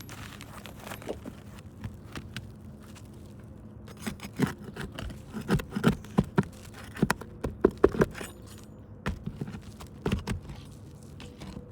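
Hand tools prying nails and a damaged roof shingle loose: a run of sharp, irregular knocks and scrapes, clustered from about four seconds in until near the end.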